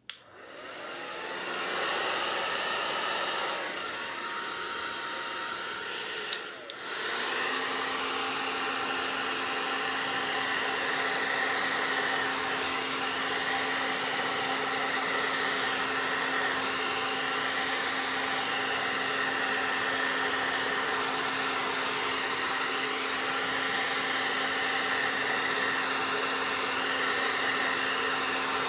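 Hair dryer on cool air blowing wet acrylic paint outward, switched on at low fan. It comes up at the start, drops out briefly about six and a half seconds in, then runs steady and a little louder with a constant hum for the rest.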